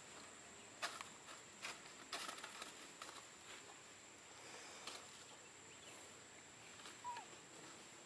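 Faint outdoor ambience: scattered soft clicks and rustles, mostly in the first half, over a steady thin high-pitched whine, with one short falling chirp about seven seconds in.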